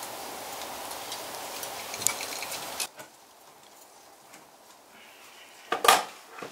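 Small metallic clicks and ticks of pliers and wire being worked at a metal electrical box, over a steady hiss that drops away about three seconds in. A single loud knock comes about six seconds in.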